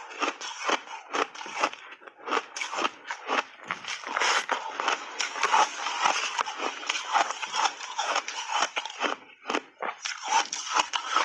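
Refrozen block ice with matcha and milk powder being bitten and chewed, a dense run of crisp crunches with a short pause about two-thirds of the way through.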